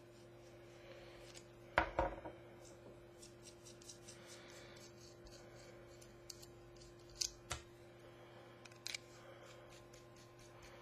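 Faint clicks and taps of a small metal e-cigarette clearomizer and battery being handled and screwed together, with a few sharper clicks about two seconds in and again around seven to nine seconds in.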